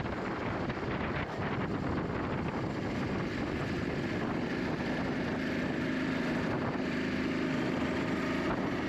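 Honda Super Cub 125's single-cylinder engine running under way, with wind buffeting the microphone; its note settles into a steady tone about halfway through.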